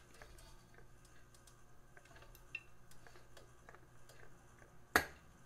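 Cooking oil being poured into a hot nonstick wok: faint, scattered light ticks, and one sharp click about five seconds in.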